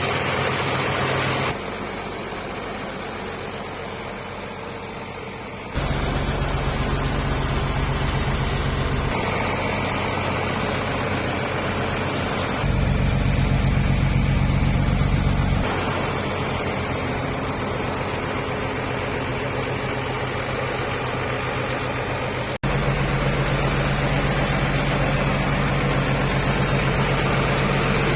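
EBRO H 135 DT tractor's Nissan diesel engine running steadily at low revs. Its sound changes abruptly in level and tone several times, as if heard from different spots.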